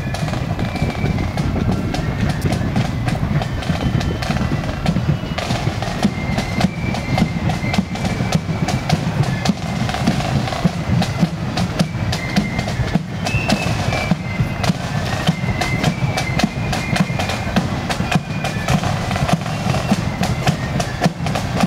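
Marching band playing: dense, steady drumbeats with a high melody line over them.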